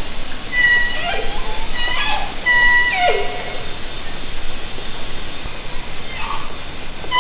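Southern Resident killer whale (J and K pod) calls recorded underwater by hydrophone: a run of short, high, pitched calls, several sliding downward at the end, in the first half, then one more shortly before the end, over a steady hiss of water noise.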